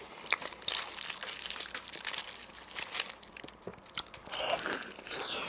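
Paper doughnut wrapper crinkling in the hands while a doughnut is bitten into and chewed close to the microphone, a steady run of small crackles.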